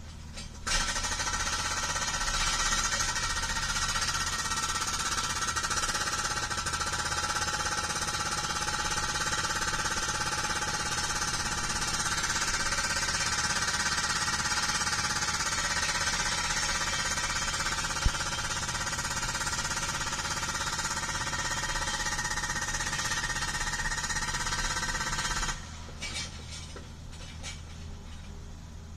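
Hydraulic hammer on a CAT 305 mini excavator breaking rock: a steady, rapid rattle of blows starting about a second in and stopping a few seconds before the end, leaving the quieter sound of the machine running.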